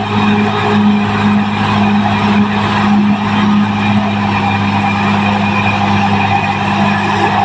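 Caterpillar D6R XL bulldozer at work, its diesel engine running with a steady, unbroken drone.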